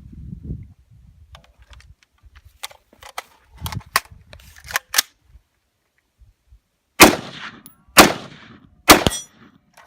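A few sharp clacks as an AR-15 rifle is grabbed and loaded, then three loud rifle shots about a second apart, each with a short echoing tail.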